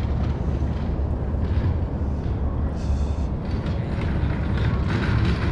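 A steady low rumble with a noisy hiss above it.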